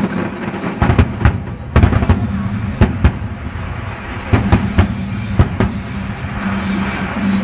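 Aerial fireworks bursting in a quick, irregular series of sharp bangs and booms, about a dozen in all, over a steady low hum.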